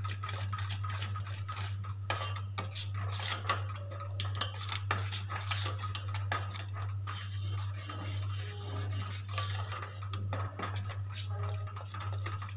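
Metal spoon stirring a pot of thickening milk and ground rice for phirni, scraping the stainless steel pot in a quick, uneven run of strokes. A steady low hum runs underneath.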